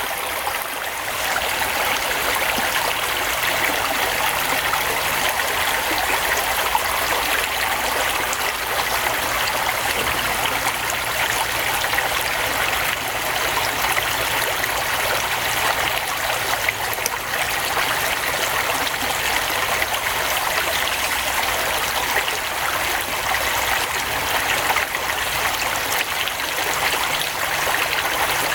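Steady rushing noise like running water, unchanging throughout, with a faint low hum underneath.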